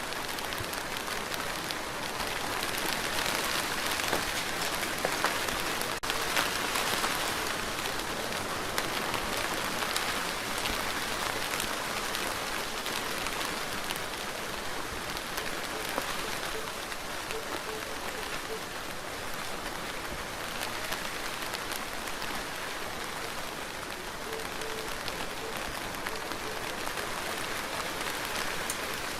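Steady rain falling, an even hiss dotted with the ticks of single drops, swelling slightly a few seconds in.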